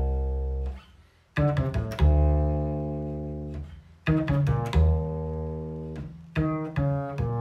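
Jazz double bass played pizzicato: a quick triplet figure crossing strings, from the root through the seventh and fifth back to the root, ending on a long ringing low note. The figure is played three times, about every two and a half seconds.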